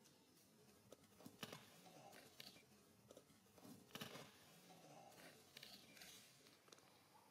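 Faint scuffling and scattered light taps of monkeys moving and tussling on concrete scattered with dry leaves, with a sharper tap about four seconds in.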